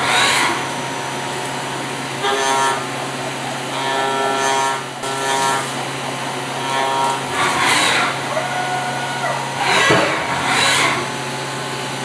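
5-axis CNC milling machine at work on a metal chess piece under flood coolant. A steady low motor hum runs throughout, with a pitched whine from the cut coming and going at times. Short hissing rushes of coolant spray come at the start and twice in the second half.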